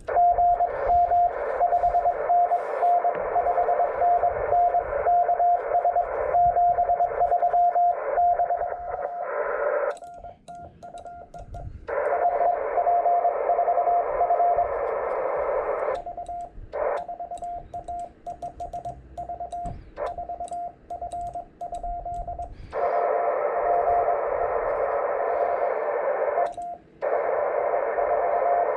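Morse code (CW) on the 18 MHz ham band heard through a radio transceiver: a single tone of about 700 Hz keyed in rapid dots and dashes over receiver hiss. The hiss drops out for stretches of a few seconds while the keyed tone goes on.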